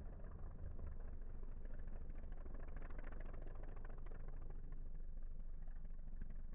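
Off-road race truck engine idling steadily, a low, even rumble with no revving.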